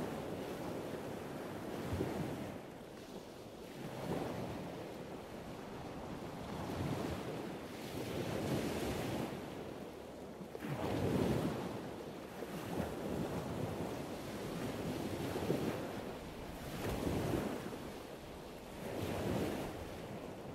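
Wind buffeting the phone's microphone over surf breaking on a beach, the noise swelling and easing every second or two.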